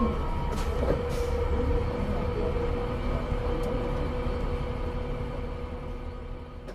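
Orion VII CNG transit bus with an Allison B400R transmission running: a steady engine drone with a steady whine over it and a few faint clicks. It fades out near the end.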